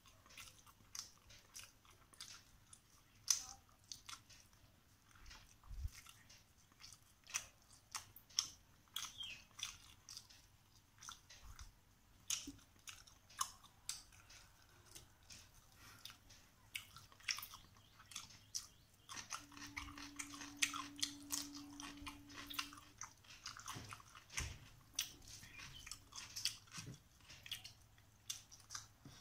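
Close-up eating by hand: fingers squishing rice and carp curry on a steel plate, with wet chewing and crunching, heard as a dense string of short wet clicks and smacks.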